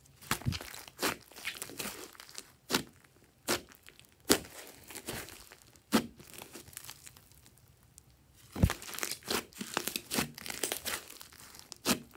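Thick slime studded with foam beads being pressed and pulled by hand, giving irregular sharp pops and crackles with softer sticky crackling between them.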